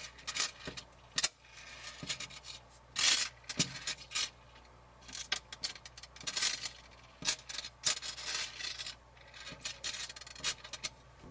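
Refrigerator parts being handled and fitted by hand: irregular scraping and rubbing with scattered sharp clicks and knocks.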